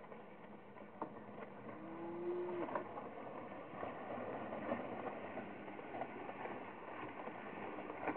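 Team of two Belgian draft horses pulling a metal drag over a dirt yard: the drag scraping and rattling along the ground with hoofbeats, growing louder about two seconds in as the team comes close.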